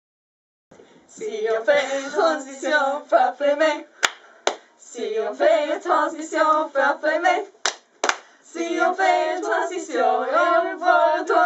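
Girls singing together, starting about a second in, with two pairs of sharp hand claps around the middle.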